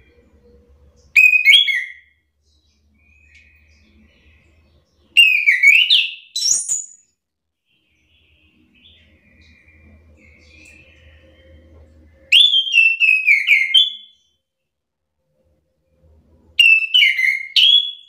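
Chestnut-capped thrush (anis kembang) singing: four short, loud phrases of rich whistled notes that glide up and down, with pauses of a few seconds between them.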